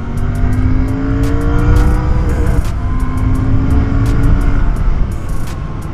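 Royal Enfield motorcycle engine accelerating hard, its pitch rising for about two seconds, then a short break at a gear change, after which it pulls steady at a lower pitch and eases off near the end.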